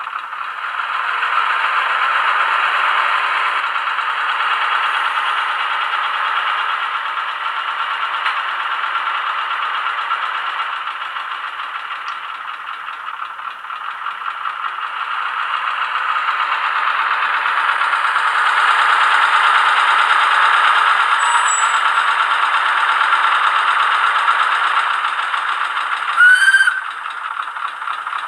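Diesel engine sound from the ZIMO sound decoder in an HO-scale Roco NS series 200/300 shunting locomotive, played through the model's small speaker with no bass. It runs steadily, growing louder twice and easing back. Near the end comes a brief loud high tone that rises in pitch.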